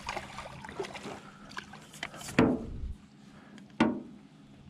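Two sudden splashing knocks, about a second and a half apart, as a hooked smallmouth bass is brought to the side of a small boat and netted, over light water noise.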